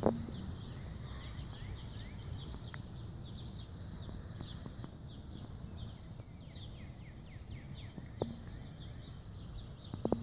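Birds chirping in many short falling notes over a steady low outdoor rumble, with a few short knocks: one at the start and two near the end.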